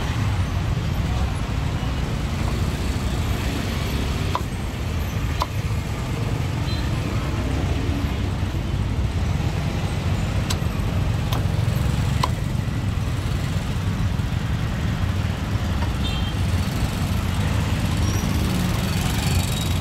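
Steady low road-traffic rumble, with a few single sharp knocks of a cleaver chopping roast pork on a wooden chopping block.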